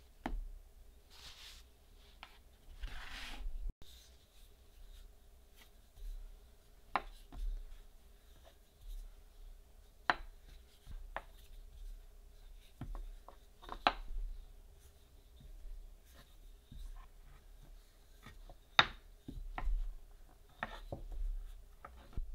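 Dough being handled, then rolled out with a wooden rolling pin on an end-grain wooden board. Soft rubbing swishes come first, then scattered sharp knocks and clicks of the pin against the board.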